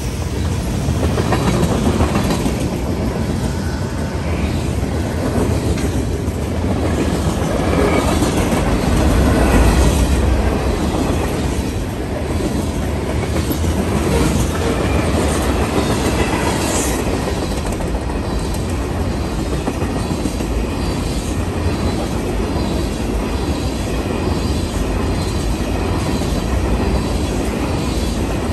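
Freight train cars (covered hoppers and tank cars) rolling past: steady wheel-on-rail rumble with a clickety-clack of wheels over the rail joints and, now and then, a faint squeal of wheels.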